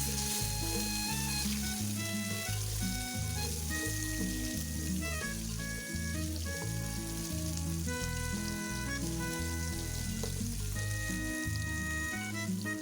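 Beef sizzling as it fries in hot oil in a cooking pot with onions, garlic and pilau masala, under background music with a steady bass line.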